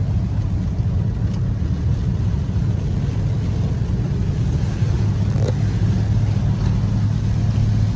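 Steady low drone of a car driving on a rain-soaked road, heard from inside the cabin: engine and tyre noise with a hiss of rain and spray.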